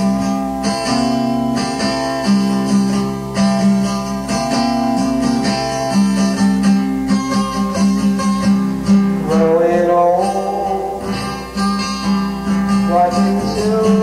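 Guitar music played back from a 1983 cassette home recording on a tape deck: a guitar picks a steady, repeating pattern of notes.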